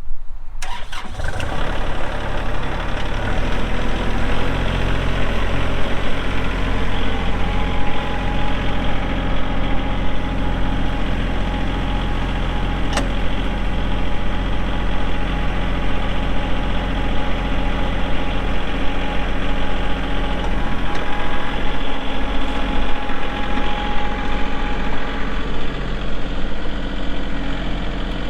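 Kubota L3301 tractor's three-cylinder diesel engine running steadily with an even low hum, its pitch shifting slightly a few seconds in.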